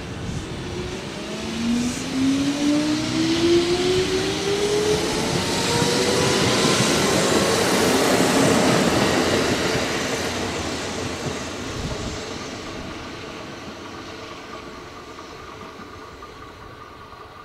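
Kintetsu 9000 series two-car electric train, a field-chopper-controlled set, pulling away and accelerating past: its traction motor whine climbs steadily in pitch over the first several seconds. The running noise of the wheels on the rails is loudest about halfway through as the cars pass, then fades as the train moves away.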